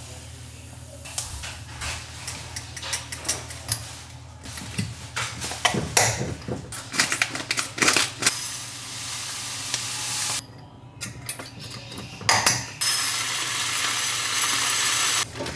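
Dry goods being decanted into glass clip-top jars: crinkling and rustling of food bags, a bag snipped open with scissors, and grains pouring into a jar in a steady hiss, twice, the second time rice, near the end.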